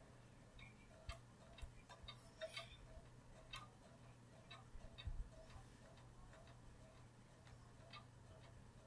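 Near silence: quiet room tone with a low hum, faint ticking at about two a second, and a few light scattered clicks.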